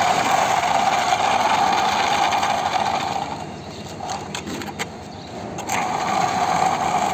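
A plastic toy truck whirring steadily as it is pushed by hand along concrete. The whir fades about three seconds in, with a few clicks, and picks up again near six seconds.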